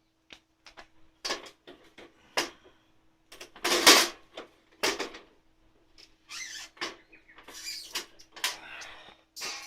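Irregular knocks, clicks and scraping from the metal parts of a sooty portable wood stove being handled and cleaned, the loudest scrape about four seconds in.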